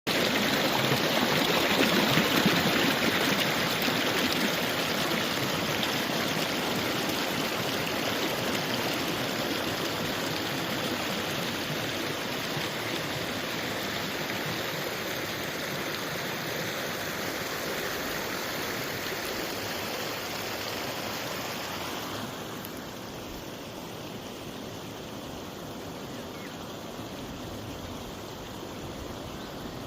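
Steady rush of water in a stream, loudest in the first few seconds and slowly easing off, then dropping quieter about 22 seconds in.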